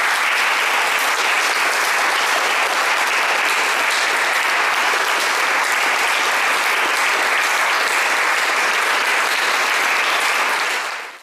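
Audience applauding steadily, with dense clapping that holds at an even level and fades out quickly near the end.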